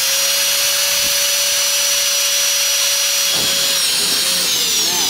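Electric drill running a hole saw through a molded part: a loud, steady motor whine that holds one pitch and starts to wind down near the end.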